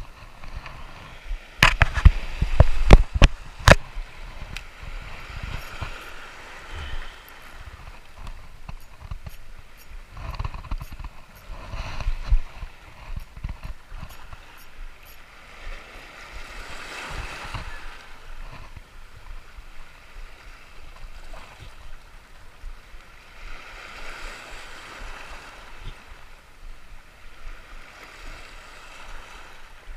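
Small sea waves washing and gurgling against a rocky shoreline, swelling and easing every several seconds. A cluster of sharp knocks about two to four seconds in is the loudest sound.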